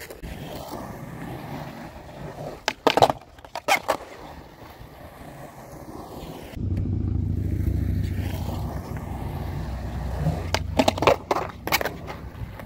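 Skateboard on concrete: two quick runs of sharp wooden clacks and smacks as the board is popped and lands, about three seconds in and again near the end. From about halfway a steady low rumble of wheels rolling on concrete sets in.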